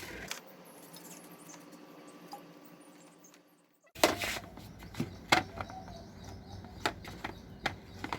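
Hands mixing wheat flour and water and kneading it into dough: irregular soft knocks and clicks in the second half, after a faint steady hum in the first half.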